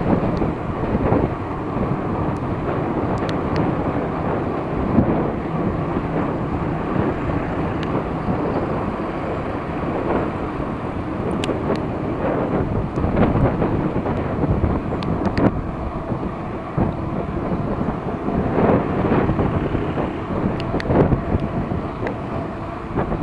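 Wind buffeting the microphone of a chest-mounted camera on a moving bicycle: a steady low rumble mixed with tyre and road noise, with a few light clicks.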